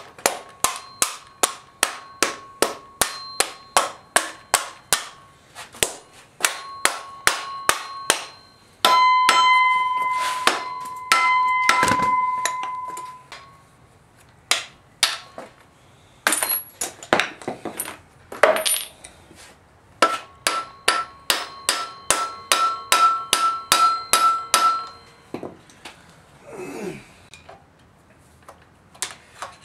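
A hammer striking metal engine parts again and again, in runs of about three blows a second with short pauses. Each blow leaves a ringing tone, and one rings on for a few seconds about nine seconds in. The blows are driving the parts apart.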